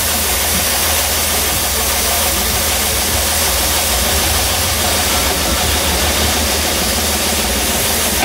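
Air suspension on a bagged 2008 Honda Accord dumping air as the car is aired out: a loud steady hiss that cuts off suddenly at the end, over the low hum of the idling engine.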